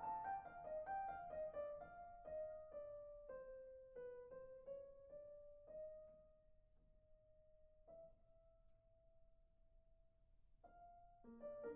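Soft solo piano background music: single notes falling and slowing, a long held note in the middle, and fuller chords coming back near the end.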